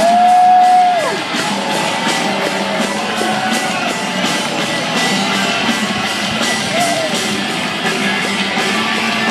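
Rock music with guitar playing loud over a ballpark's public-address system for a closer's entrance, with a strong held note in the first second.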